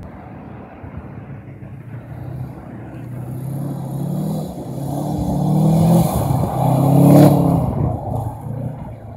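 Car engine revving in repeated rising pulls as the car drives and slides on the ice. It gets louder as it comes close, loudest about seven seconds in with a hiss of tyres on ice, then fades.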